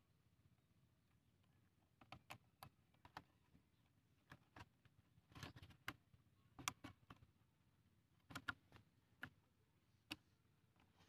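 Thin plastic bottle crackling and clicking as the cut-off neck is pushed funnel-first into the bottle body: irregular sharp clicks and crinkles in short clusters.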